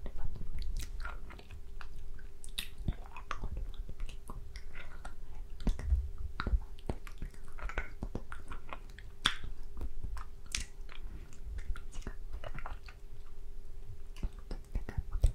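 Close-miked wet mouth sounds from sucking and licking a hard candy: irregular clicks and smacks.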